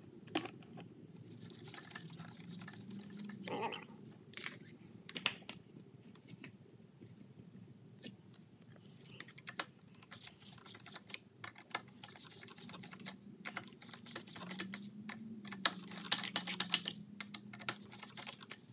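Irregular light clicks and ticks of a hand nut driver turning down the bolts on a lawn mower's air-filter backing plate.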